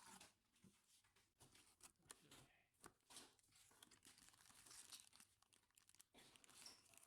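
Faint crinkling and rustling, with scattered light clicks, from hands handling objects at close range.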